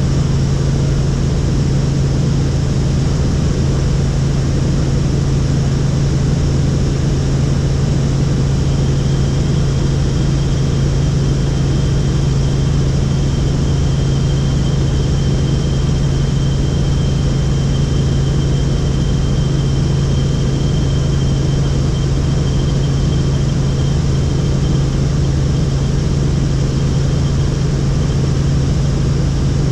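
Helicopter in flight: the steady, loud drone of rotors and engine with a strong low hum, joined from about nine seconds in by a faint high whine.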